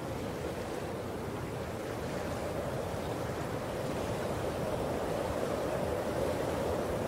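Steady outdoor rushing ambience, slowly growing a little louder, with no distinct events.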